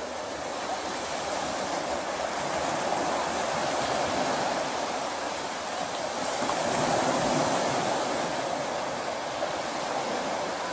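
Small waves breaking and washing up the shore of a sandy beach, a steady rushing that swells and eases a few times.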